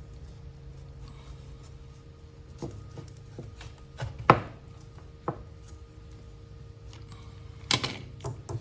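Scattered light clicks, knocks and rubbing from working a window screen's rubber spline back into the frame channel to tighten the screen. The loudest knock comes a little over four seconds in, with a few sharp clicks near the end, over a steady low hum.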